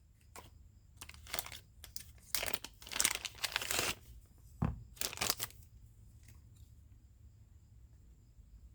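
Plastic packaging being handled, crinkling and crackling in several short bursts over the first five seconds or so, with one soft knock in the middle.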